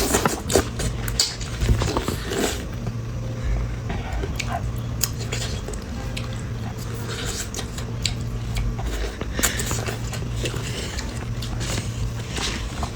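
Close-miked eating sounds: chewing, wet mouth smacks and squishes, with scattered clicks of dishes or utensils over a low steady hum.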